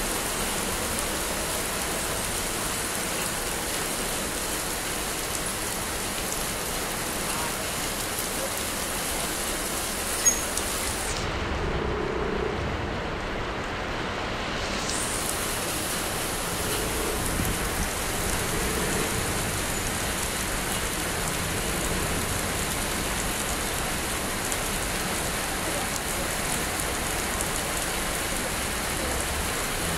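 Steady rain falling on wet pavement, a constant even hiss. One short sharp knock about ten seconds in, and the higher part of the hiss drops away for a few seconds just after.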